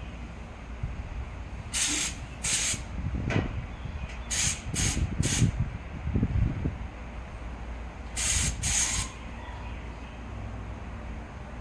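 Aerosol spray paint can sprayed in short hissing bursts of about half a second each: two near the start, three in quick succession around the middle, and two more near the end.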